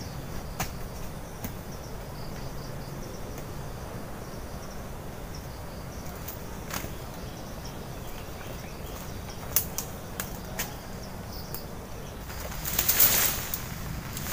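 Bamboo poles knocking and clicking now and then as they are handled and set in place, over quiet forest ambience, with a louder rush of rustling foliage near the end.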